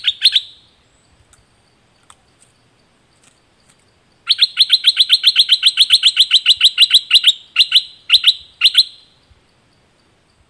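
Stripe-throated bulbul singing: a brief burst of notes at the start, then after a pause a fast run of sharp, evenly repeated chirps, about seven a second for three seconds, ending in a few more spaced-out notes.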